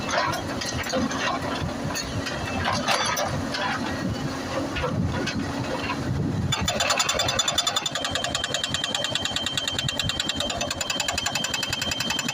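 Excavator engine running with irregular knocks and clatter, then about six and a half seconds in the excavator's hydraulic breaker hammer starts pounding rock in a rapid, steady rhythm with a metallic ring.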